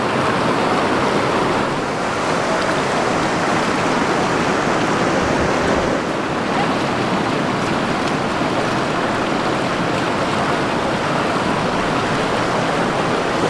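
Steady, even rushing noise of running water.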